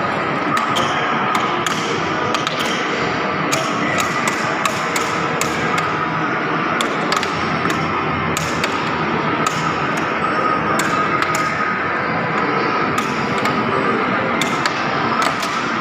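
Air hockey puck and mallets clacking and knocking at irregular intervals on a Big Wave air hockey table, over a steady background din of arcade noise.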